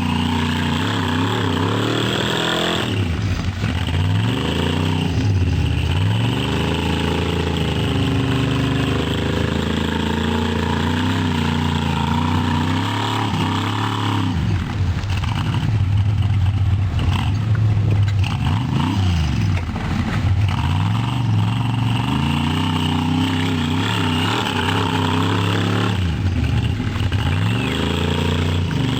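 Chevy V8 engine in a Jeep Wrangler, revving up and down over and over, its pitch rising and falling every few seconds.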